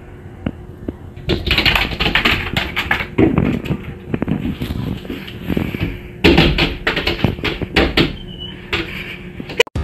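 A cat's paws tapping and scratching rapidly at a glass door, a dense run of clicks and scrapes starting about a second in.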